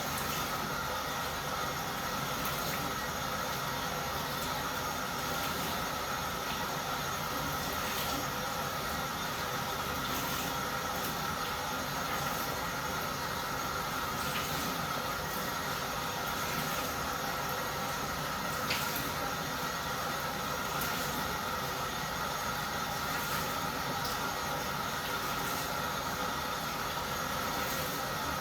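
A steady hiss with a faint constant tone, broken by a few faint clicks.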